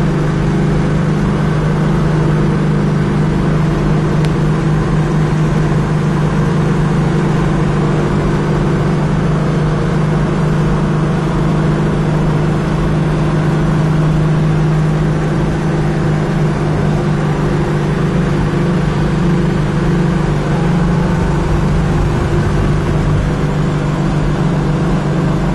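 Classic Mopar E-body muscle car cruising at steady freeway speed, heard from inside the cabin: a steady low engine drone over tyre and wind noise.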